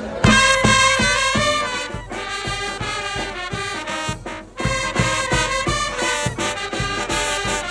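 Background music with brass horns over a steady beat.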